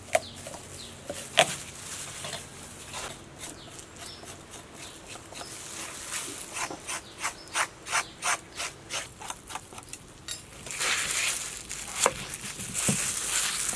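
Metal spoon scraping the seeds out of a halved papaya in quick, even strokes, about three a second. Near the end, a kitchen knife cuts the papaya on a wooden chopping board, with a sharp knock of the blade on the board.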